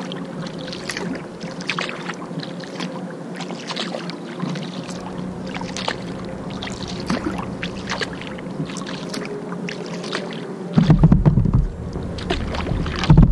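Kayak paddle strokes dipping and splashing in river water, an irregular run of short splashes over a steady low hum. Near the end a much louder low rumble breaks in.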